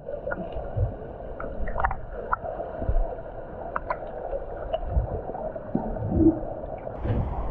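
Muffled water sloshing and gurgling around a camera dipped at the pool surface, heard partly from underwater, with scattered small clicks.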